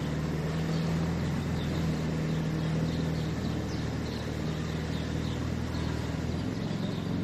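Street ambience: a steady low engine hum from vehicles, with faint short bird chirps over it.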